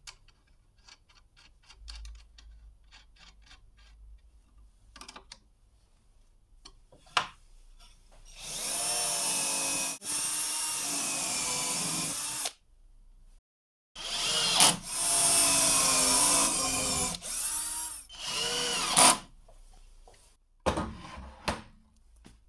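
Cordless drill drilling into a plywood block in two long runs of several seconds each, its motor speed rising and falling, with a few short bursts of the drill near the end. Before it, faint light clicks of a nut being threaded onto a steel threaded rod.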